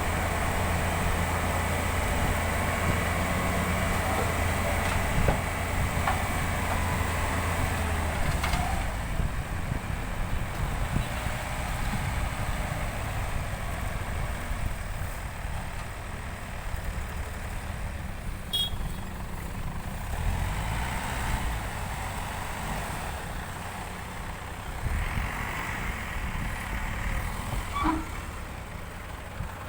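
Diesel engine of a JCB 3DX backhoe loader running under working load. Its low note drops about eight seconds in and picks up again around twenty seconds.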